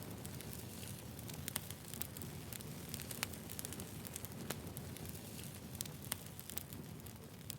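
Wood campfire burning, with a steady low rumble of the flames under frequent irregular sharp crackles and pops.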